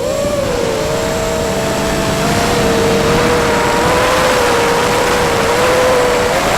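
Electric motors of an FPV model aircraft in flight: a steady whine of two close tones that wander a little in pitch and rise near the end, over a strong rush of wind noise.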